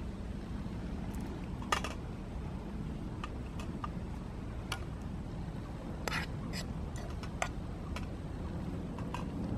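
Scattered light clinks and two short scrapes of a metal spoon and a skillet against a metal camp plate, over a steady low rumble.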